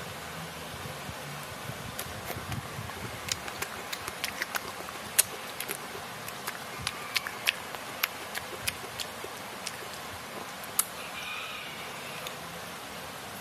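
A fork clicking and tapping against a plate as food is picked up, a string of sharp irregular clicks over a steady background hiss.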